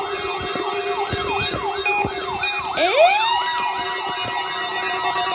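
Several NOAA weather alert radios sounding their alarms at once for a required weekly test: a siren-like wail repeating about three times a second. About three seconds in, a second alarm tone sweeps up and holds a steady pitch.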